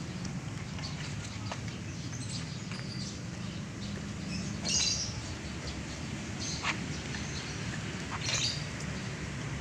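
Child's bicycle tyres rolling over concrete paving blocks with a steady low rumble. Short high chirps come a few times, the clearest about halfway through and near the end.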